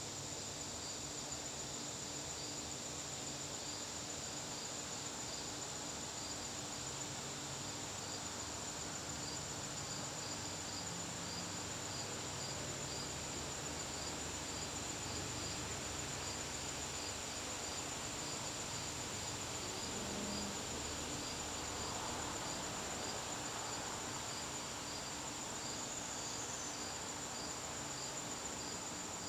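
Crickets singing in an evening garden: one holds a continuous high-pitched trill while another, a little lower, chirps in a steady regular rhythm.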